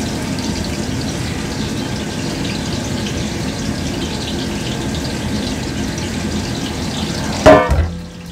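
Sliced onions sizzling and crackling in a large aluminium daig of hot ghee, just tipped in to brown. About seven and a half seconds in, a single loud metallic clang, like the steel tray or a ladle knocking against the pot, after which the sizzle sounds quieter.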